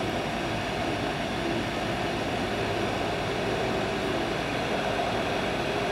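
Hot air rework station blowing a steady rush of air onto a fluxed surface-mount chip to melt its solder.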